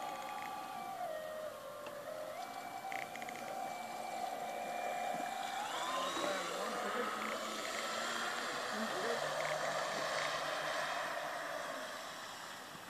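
Radio-controlled model pilot boat's motor whining. The pitch dips about a second in and comes back up, then climbs around six seconds in as the boat speeds up, with a rush of water off the hull. It fades near the end as the boat moves away.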